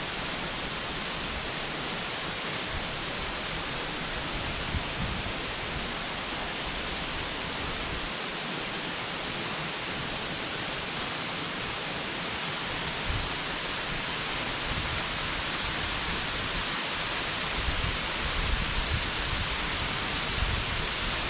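Waterfall heard from a distance: a steady, even rush of falling water. A few low bumps come near the end.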